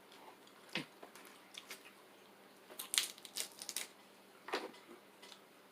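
Close-up eating sounds from a seafood boil: scattered short crunches, clicks and wet squishes, in a few brief clusters.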